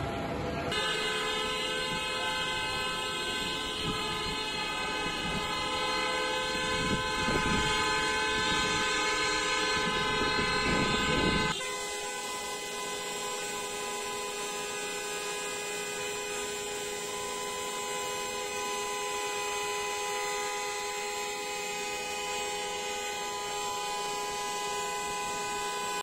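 Many vehicle horns honking at once in a long, overlapping, steady blare, drivers sounding their horns together in a mass honking protest. About 11 seconds in, the sound changes suddenly to a different set of horns that is a little quieter and has less low rumble.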